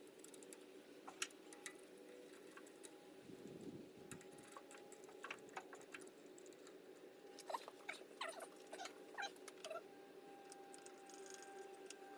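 Near silence: faint room tone with a steady low hum and scattered light clicks and ticks, which come thicker in the second half.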